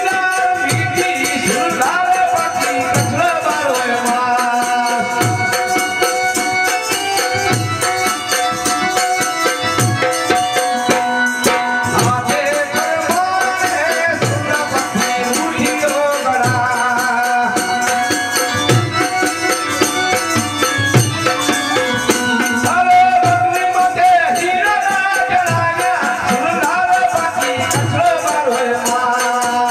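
Kutchi Sindhi folk song performed live: a man sings a long, wavering melodic line over harmonium. A two-headed hand drum beats a steady low pulse about once a second, with rattling hand percussion.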